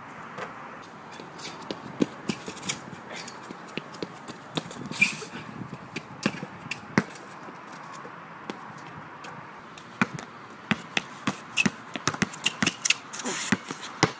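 Basketball dribbled on an outdoor hard court: separate sharp bounces at irregular intervals, coming fast and close together in the last few seconds.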